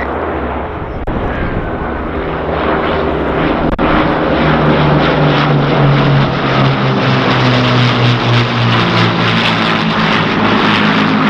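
Avro Lancaster and two Spitfires passing in formation, the drone of their Rolls-Royce Merlin and Griffon piston engines and propellers. It grows louder over the first few seconds as they come overhead, then holds steady, its pitch easing down slightly near the end as they move away.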